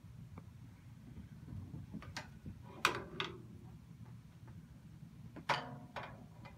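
A few light clicks and knocks as drumsticks are picked up and handled at a drum kit, the two loudest about three seconds in and near the end, each with a brief ring. No full drum strokes.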